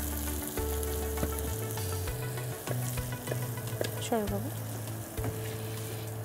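Spiced dried ribbonfish (chhuri shutki) sizzling in a nonstick frying pan as a wooden spatula stirs and scrapes it, with scattered clicks of the spatula against the pan. A short squeak about four seconds in.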